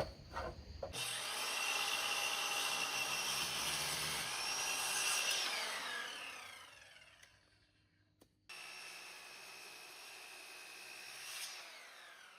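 Electric power saw cutting wood, its motor whine falling as the blade spins down about six seconds in. After a brief break, a quieter stretch of the same saw running, fading near the end.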